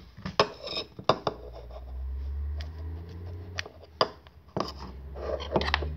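A small dish clinking and knocking as it is handled right next to the microphone, with about half a dozen sharp knocks spread through, over a steady low hum.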